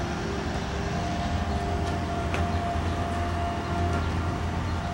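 Steady low hum and rumble with a faint steady whine above it, and a faint tick a little past the middle; no distinct event stands out.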